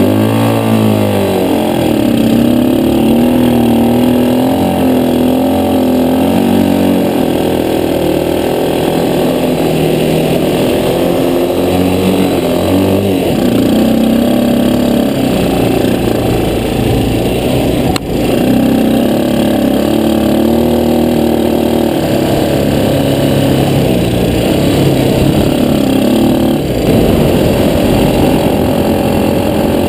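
Jaguar quad ATV's engine driving the bike over sand, its pitch rising and falling with the throttle.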